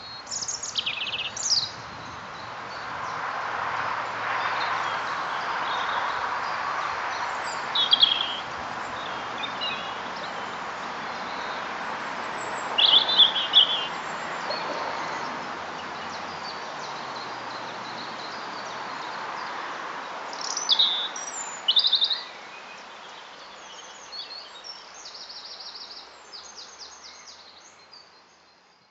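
European robin singing short, high, varied phrases separated by pauses of several seconds, with a run of quicker notes near the end, over a steady background hiss.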